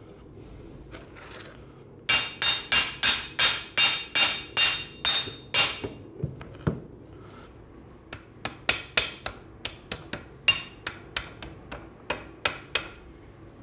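Small hammer tapping a split pin into the steel frame of a 3-ton hydraulic floor jack. A quick run of about a dozen ringing metallic taps comes at roughly three a second, then after a short pause a second run of lighter taps.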